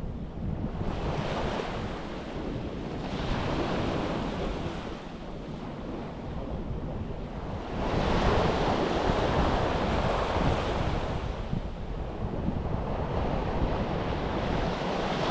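Sea waves washing onto a beach in slow, repeated surges, the largest breaking about halfway through. Wind rumbles on the microphone throughout.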